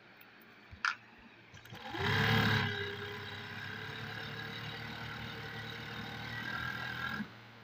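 Industrial piko sewing machine speeding up about two seconds in, its pitch rising and then settling, then running steadily as it stitches a cutwork piko edge on fabric, stopping shortly before the end. A single click comes shortly before it starts.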